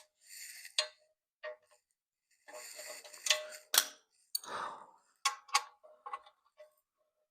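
Hand tools at work on a motorcycle's metal bash guard: irregular clicks and knocks with a few short scraping bursts, as the guard is bolted up.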